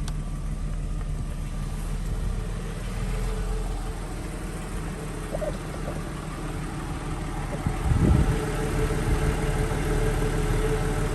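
Porsche Boxster S's 3.2-litre flat-six engine idling steadily, heard from inside the cabin, with a brief low thump about eight seconds in.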